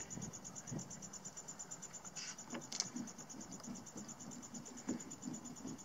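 Hand screwdriver driving a screw through a hub base into a plastic kayak deck: faint irregular creaks and small ticks as it turns. Under it, a steady fast pulsing chirp of insects, about ten pulses a second.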